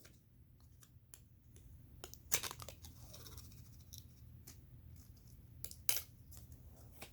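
Scotch tape being handled and pulled off its roll: faint scattered clicks and rasps, with louder strips of tape noise about two and a half seconds in and again near six seconds.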